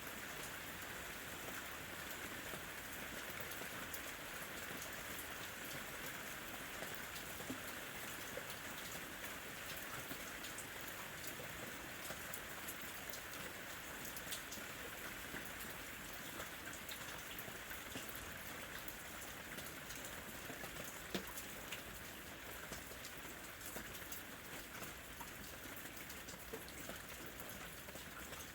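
Steady rain falling, with many individual drops ticking sharply against a surface close by.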